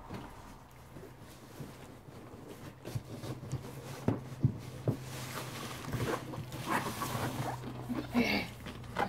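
Cardboard rustling and scraping, with a few light knocks, as a long boxed doll is pulled out of a cardboard shipping box.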